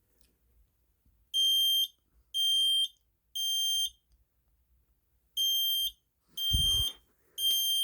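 Smoke alarm sounding its test signal: three high-pitched beeps about a second apart, a pause, then three more, the temporal-three evacuation pattern. A brief low thud comes with the fifth beep.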